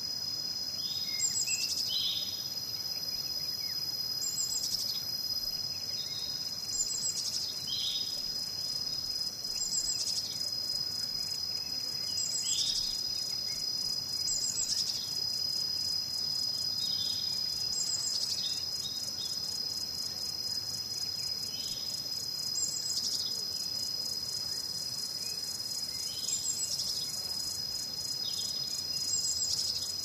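Crickets or other insects trilling steadily at a high pitch, with a bird repeating a short high call every two to three seconds.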